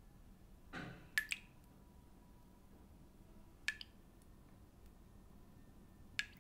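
Quiet room tone broken by sharp, drip-like clicks, each with a brief high ring: two in quick succession about a second in, one near four seconds and one near the end. A softer, duller sound comes just before the first pair.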